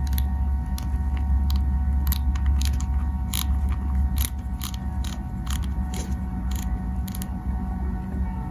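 Clicker on the spool tension knob of a Maguro Karambit 100HSL baitcasting reel, clicking as the knob is turned by hand: sharp, irregular clicks about two or three a second, over a steady low hum.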